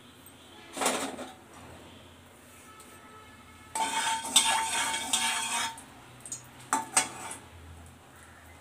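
Metal spatula scraping around the inside of a metal kadai of heating mustard oil for about two seconds, with a ringing tone as it drags. A clank comes about a second in, and a few sharp clinks follow near the end as the spatula is laid against the pan.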